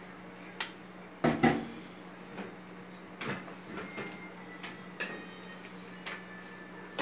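Sharp taps and clicks of hen's eggs being cracked and the shells pried open by hand, with a double knock about a second and a half in the loudest. A low steady hum runs underneath.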